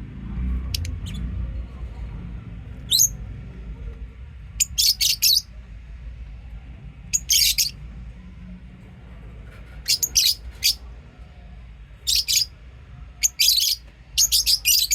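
Lovebirds chirping: short, sharp, high chirps in bursts every second or two, some in quick runs of several, over a low steady hum.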